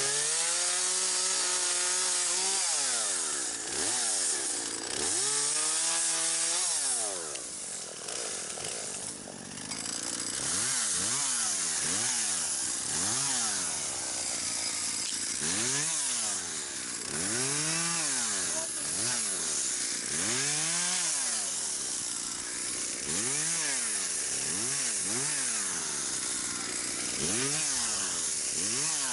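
Two-stroke chainsaw held at high revs, then revved up and down over and over, its pitch rising and falling every second or two.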